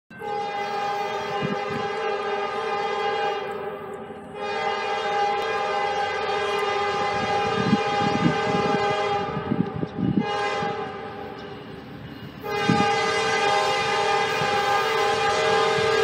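Freight locomotive's multi-chime air horn blowing three long blasts as the train approaches: the first about four seconds, the second about six seconds and fading near its end, and the third starting about twelve and a half seconds in and still sounding.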